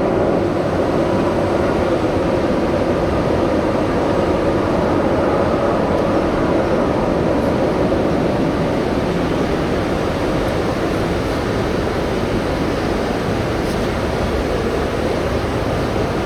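Natural-gas burners of a large porcelain kiln firing, a loud, steady rushing roar that holds unchanged.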